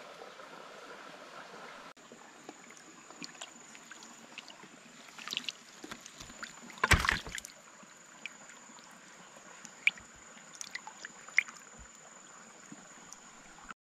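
Water sloshing and splashing with scattered light knocks, and one louder splash about seven seconds in. A thin, steady high-pitched whine runs underneath from about two seconds in.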